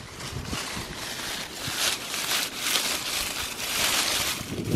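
Dry fallen leaves rustling and crunching in an irregular patter as someone moves through them with a metal detector.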